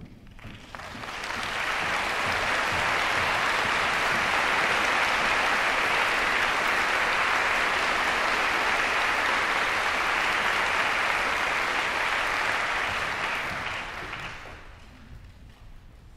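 Audience applauding: the clapping swells up over the first couple of seconds, holds steady, then dies away a second or two before the end.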